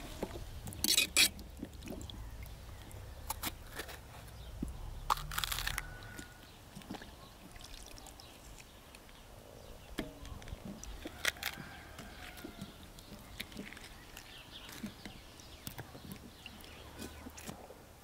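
Scattered clicks, knocks and short crunchy scrapes of vegetables being handled and cut by hand at a table, the loudest about a second in, around five seconds in and around eleven seconds in.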